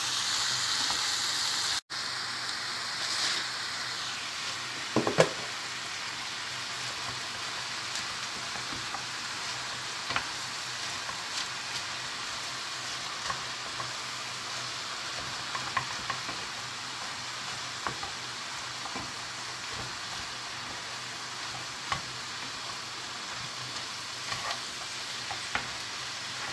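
Fresh spinach leaves sizzling and wilting in a frying pan of butter, olive oil and softened onions, as a wooden spoon stirs them. Steady frying hiss with scattered clicks of the spoon against the pan, and a louder knock about five seconds in.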